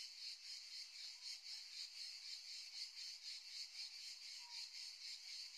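Faint chorus of chirping insects: a high-pitched, steady pulsing in quick, even beats.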